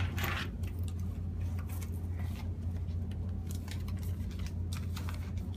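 Light rustling and scattered small clicks of hands handling a paper banknote and a wallet, with a short rustle at the start, over a steady low hum.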